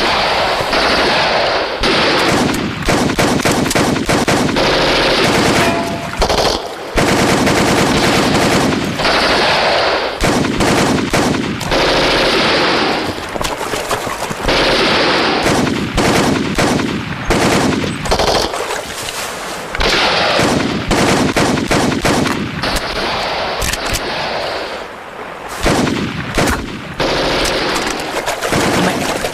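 Automatic rifle fire in a firefight: rapid bursts of gunshots, each burst lasting a second or two, one after another with short lulls between.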